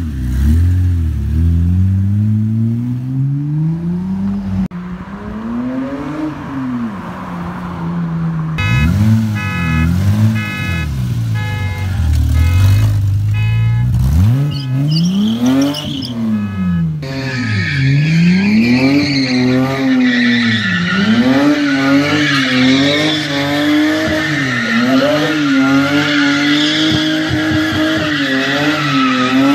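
BMW E30's engine revving up and down again and again; from about halfway on, tires squeal under it as the car spins donuts.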